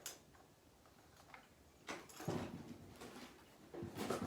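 Animatronic parts being handled and set down: a sharp click at the start, a brief rustle about two seconds in, and a few light knocks near the end.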